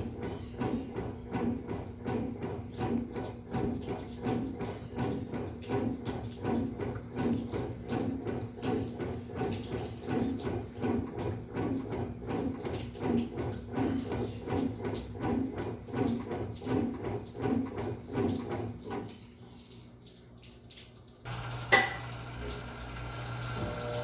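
Electrolux LTC12 top-loading washing machine agitating its load, water sloshing in a steady rhythm of about two strokes a second. The agitation stops about 19 seconds in. After a short pause a click sounds and a pump starts with a steady hum.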